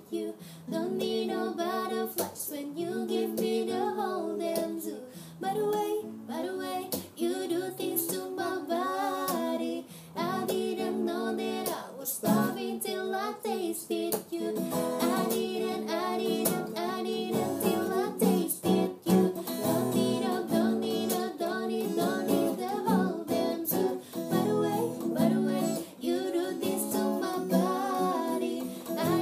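A woman singing a pop ballad over a strummed Takamine steel-string acoustic guitar.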